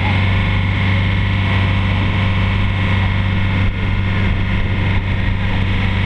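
Passenger boat's engine running at steady cruising speed, a constant low drone, with wind buffeting the microphone.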